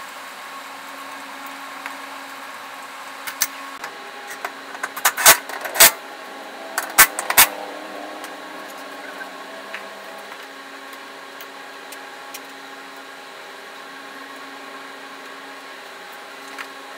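Steady mechanical hum with several sharp metallic knocks, loudest and closest together between about three and eight seconds in.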